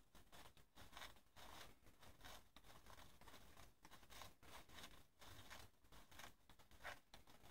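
Faint rustling and scraping of tissue paper against a paper firework-shell hemisphere as it is handled, in short irregular strokes.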